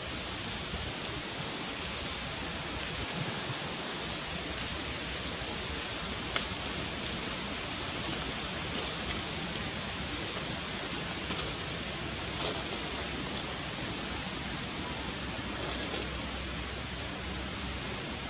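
Steady rushing outdoor background noise with a thin high whine running through it and a few faint ticks; no animal calls stand out.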